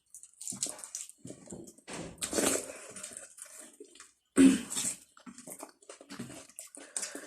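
Close-up wet chewing and lip-smacking of a person eating, in irregular bursts, with one louder smack or slurp about four seconds in.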